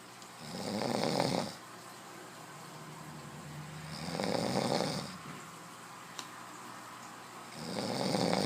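A man snoring in his sleep: three loud snores a few seconds apart, the last one starting near the end.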